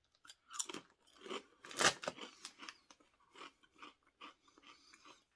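A person biting into and chewing a crisp potato chip: a run of irregular crunches, the loudest about two seconds in, thinning to softer chewing near the end.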